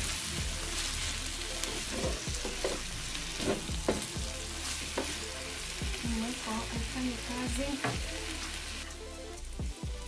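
Chicken, beef and onions sizzling in a non-stick frying pan as a wooden spatula stirs the freshly added soy sauce paste through them, with repeated scrapes and knocks against the pan.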